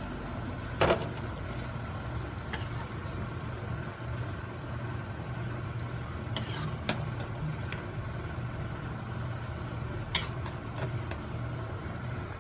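Pot of soup simmering on a stove while a plastic spoon stirs it, with a few light clicks of the spoon against the pot about a second in, around six and a half seconds in, and near ten seconds in. A steady low hum runs underneath.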